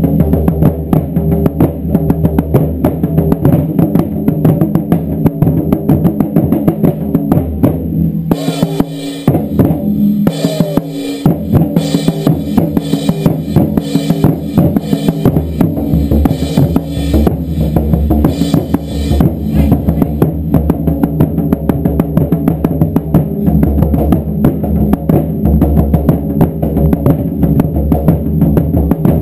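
Group of taiko drums pounding out a fast, driving beat of continuous deep strikes. A sharper, brighter layer of rapid strikes joins from about eight seconds in and drops out about ten seconds later.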